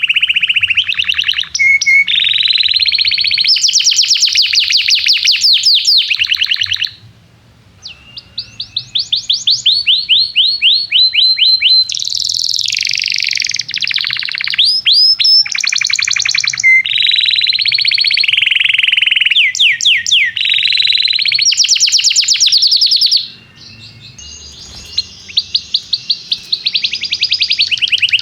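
Domestic canary singing long, loud phrases of rapid trills, each made of fast repeated sweeping notes. The song pauses briefly about seven seconds in and again near the end.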